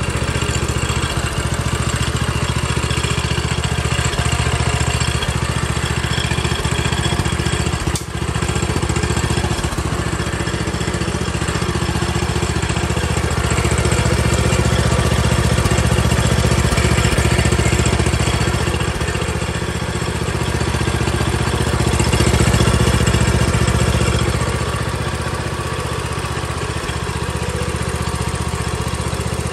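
Petrol engine of a LINAX F-20 floor chipper running steadily at idle, with a brief dip in level about eight seconds in and a slight swell later.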